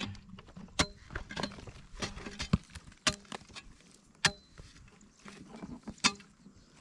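A hoe chopping into dry, cracked mud: a string of sharp, irregular knocks, roughly one a second, a couple of them with a short ring.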